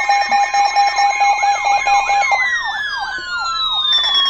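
Several electronic siren and alarm tones layered together: a fast up-and-down yelp wail about three times a second over a rapid beeping tone, with the pitches sliding downward after about two seconds and a new, higher beeping coming in near the end.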